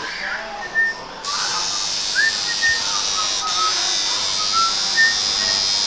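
Tattoo machine buzzing steadily in short passes on skin; it stops right at the start, starts again about a second in, and breaks off for a moment around the middle.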